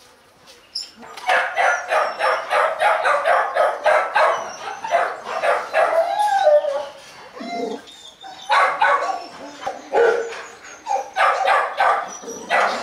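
Dogs barking in quick runs of several barks a second, starting about a second in, with a short lull a little past the middle.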